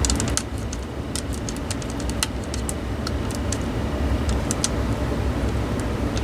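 Adhesive tape being picked at and peeled off a 2.5-inch laptop hard drive, giving irregular small crackling ticks, over a steady low background rumble.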